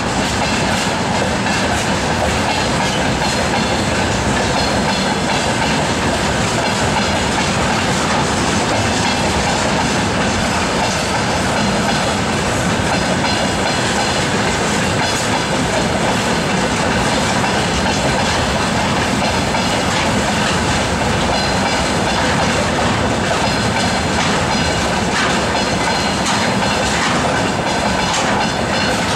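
Freight train of railway tank cars rolling steadily past at speed, a continuous rumble with the wheels clattering over rail joints, more plainly in the last few seconds.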